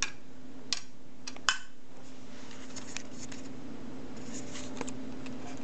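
A few sharp metallic clicks of a screwdriver on the ceiling fan's steel hanging bracket and its screws, four in the first second and a half and a couple of fainter ticks later, over a steady low hum.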